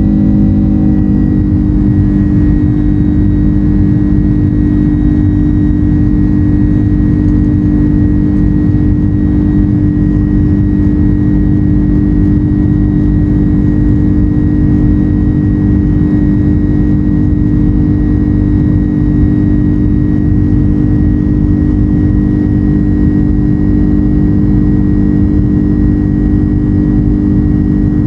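Jet airliner cabin noise after takeoff: the engines' loud, steady drone heard from inside the cabin, with a deep hum, an even rumble and a thin high whine. A few higher tones fade out about a second in.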